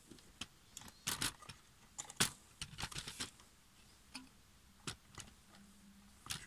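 Irregular light clicks and taps of a circuit board and plastic casing being handled, a DJ controller's main board being eased out of its housing, with a few clusters of small clicks about a second in and around three seconds in.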